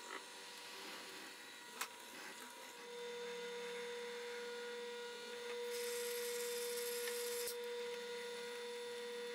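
A benchtop drill press comes on about three seconds in and runs with a steady hum. The bit drills into a wooden handle block, giving a stretch of hiss in the middle. A single click comes just before the motor starts.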